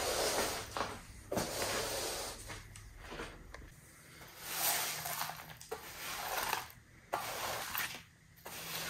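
Broom sweeping a hardwood kitchen floor in uneven swishes, with a few knocks in between.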